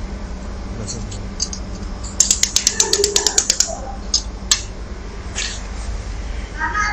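Fiber laser spot welder firing a quick run of about a dozen sharp snaps, about nine a second, for about a second and a half. It is pulsing welds onto a metal phone frame. Scattered single ticks come before and after, over a steady low machine hum.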